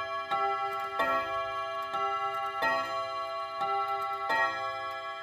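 FMS Mauthe regulator wall clock striking the hour on its chime rods in two-note bim-bam pairs: three pairs of strikes, each note left ringing, part of the count of eight for eight o'clock.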